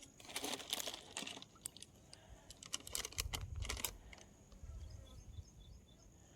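Rustling, then a quick run of sharp clicks over about three seconds, over a faint steady high tone.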